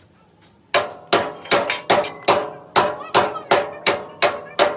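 A hammer striking steel, most likely the truck's chassis frame under repair: about a dozen ringing blows at a steady pace of roughly three a second, starting nearly a second in.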